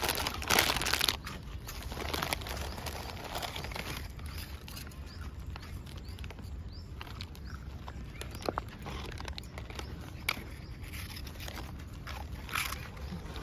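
Crinkling and crunching as stray dogs and puppies are hand-fed biscuits: a loud scuffling burst about half a second in, scattered crunches and clicks, and another loud crunch near the end.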